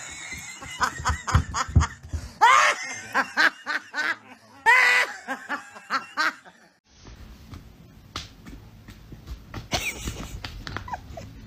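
A person laughing in repeated short bursts, several of them loud whoops. About seven seconds in the laughter stops, followed by quieter sound with a few soft knocks.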